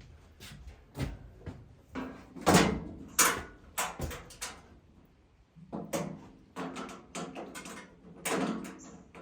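Irregular knocks and clanks of parts and tools being handled while reassembling a sawmill's clutch, some with a short ringing tail; the loudest comes about two and a half seconds in.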